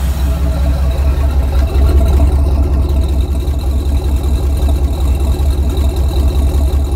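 A 1994 Ford Bronco's freshly rebuilt, carbureted 351 Windsor V8, with a MABBCO short block and aluminum heads, idling steadily at about 600 rpm, heard at the dual exhaust tips. The exhaust note is a low, even rumble.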